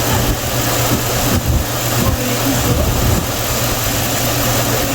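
Chevrolet Silverado's 5.3-litre V8 idling steadily during an induction service, with intake cleaner being fed through the throttle body.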